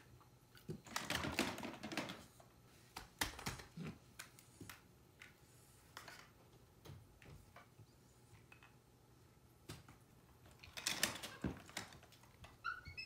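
Plastic toy tools clattering: a toy hammer knocking and tapping on plastic, in irregular bunches of clicks and knocks, with a busier flurry about a second in, another around three to four seconds, and one near the end.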